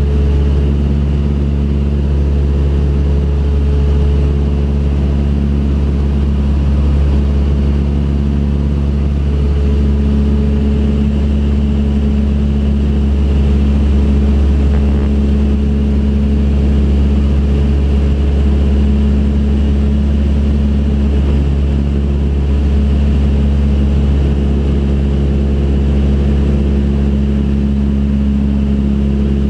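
Light aircraft's engine and propeller droning steadily in cruise, heard from inside the cabin.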